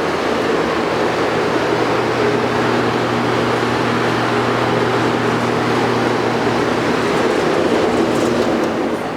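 Denray 4'x6' downdraft sanding table's blower running: a steady rush of air with a low motor hum. It begins to die away near the end.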